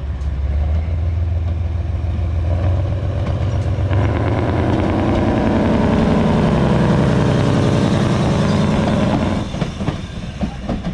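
Narrow-gauge diesel locomotive's engine revving up as it pulls away and passes close by, growing louder with a rising engine note, then easing off suddenly about nine seconds in. A few sharp clicks of wheels over the rail joints follow near the end.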